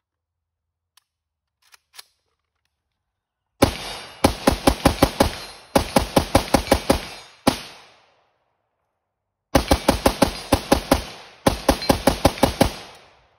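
Palmetto State Armory AK-103 rifle firing 7.62x39 in rapid semi-automatic strings, about six shots a second. A few light handling clicks come first; the shooting starts about a third of the way in, pauses for about two seconds in the middle, then resumes in two more strings.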